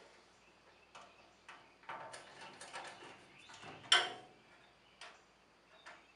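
Scattered sharp clicks and short rattling clatter of metal hardware being handled while the handles are fitted to a rolling tool chest's base unit, with the loudest click about four seconds in.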